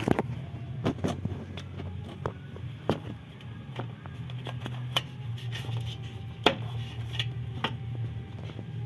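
Irregular clicks, taps and knocks of parts and hand tools being handled, over a steady low hum.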